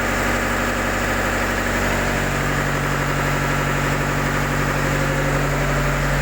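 Yanmar diesel engine idling steadily, its tone shifting slightly about two seconds in.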